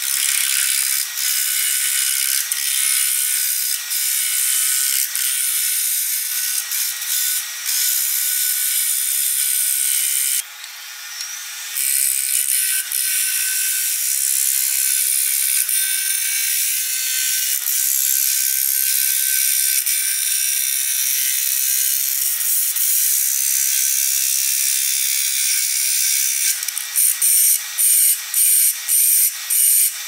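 Turning gouge cutting a dry walnut blank spinning on a wood lathe, a steady noise of wood being sheared off as the blank is roughed round. The cut breaks off briefly about ten seconds in, and near the end it comes in quick pulses, two or three a second.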